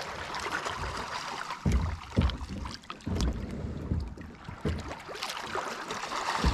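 Water sloshing around a kayak, broken by several irregular knocks and thumps as a rock scoop is worked to pry loose a stone stuck on the lake bottom. The loudest knock comes near the end.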